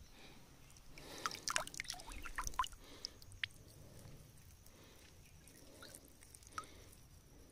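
Small splashes and drips of water, from a fishing net being handled in a shallow stream: a quick run of little splashes about a second in, then a few scattered drips.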